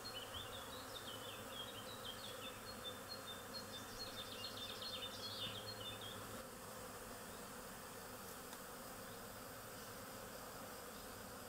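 Honeybee swarm clustered on a wooden hive box, a faint steady hum of many wings. A run of short, high chirping notes sounds over it for the first six seconds.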